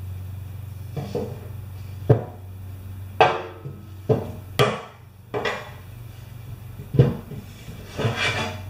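Scattered knocks and clatters from handling the generator's fuel tank and tools, about seven sharp hits spaced irregularly, over a steady low hum.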